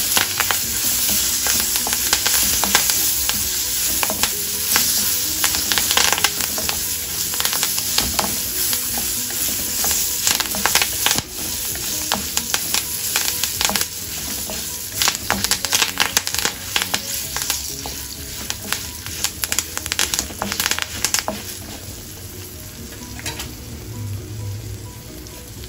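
Tempering spices, peanuts, chillies and curry leaves sizzling in hot oil in a kadai, stirred with a wooden spatula that scrapes across the pan, with frequent sharp pops and crackles. The sizzle fades somewhat over the last few seconds.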